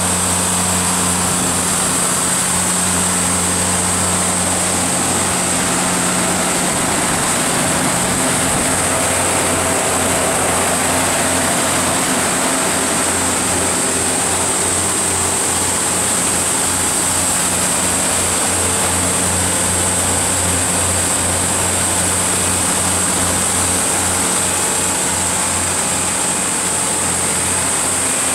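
Cummins QST30-G5 V12 diesel engine of an 800 kW DQFAB generator set running steadily: an even, deep engine hum with a steady high whine above it.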